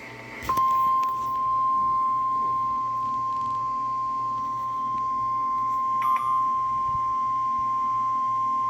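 NOAA Weather Radio warning alarm tone: a steady single tone of about 1050 Hz that starts about half a second in, right after the end of a SAME data burst, and signals that a warning message follows. A brief click comes about six seconds in.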